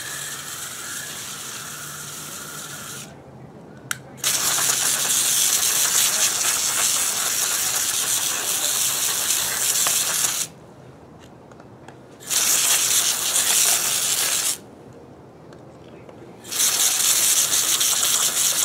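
Garden hose spray nozzle jetting water onto a boiled hog skull on concrete, rinsing off the last of the meat. The spray comes in three bursts of hissing water: a long one starting about four seconds in, a short one, and another near the end, with quieter pauses between.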